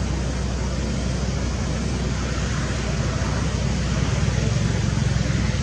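Steady outdoor background noise: an even low rumble with a hiss above it, with no distinct events.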